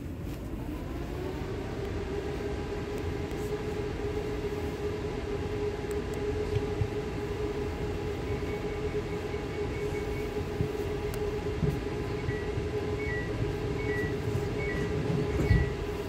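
ES2G Lastochka electric train running, heard from inside the carriage: a steady rumble, with an electrical whine that climbs in pitch over the first couple of seconds and then holds steady. In the second half, rows of short high beeps repeat, and there is a brief thump near the end.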